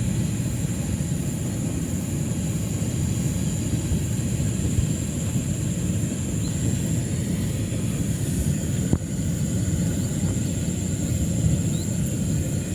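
A steady low rumble with a constant thin high-pitched whine over it, and no distinct events.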